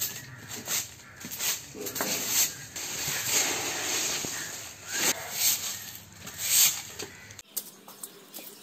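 Homemade garden broom sweeping dry leaves across a concrete floor: a run of scratchy swishing strokes that stops abruptly about seven seconds in.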